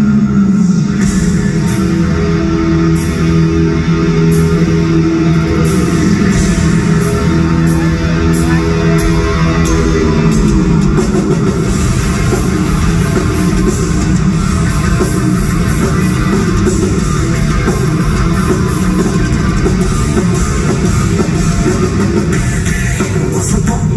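Heavy metal band playing live, electric guitars and drum kit at full volume. Held low guitar notes slide downward about ten seconds in, and the playing turns dense and busy after that.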